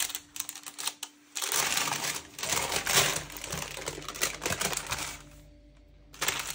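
Parchment baking paper crinkling and rustling as it is handled and peeled off a baked sponge cake, in a dense run of small crackles that dies down briefly near the end and then starts again.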